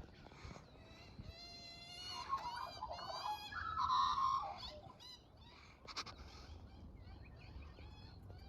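Young magpie's begging calls: a series of pitched, whining cries that glide up and down, loudest about four seconds in. A sharp click comes near six seconds, followed by fainter short chirps.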